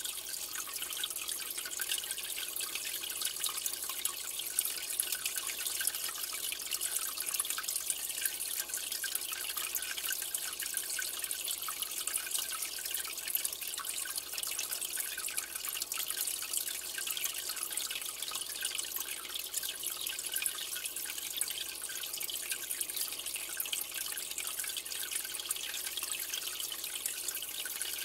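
Aquarium water trickling and dripping steadily, an even fine splashing patter that does not let up.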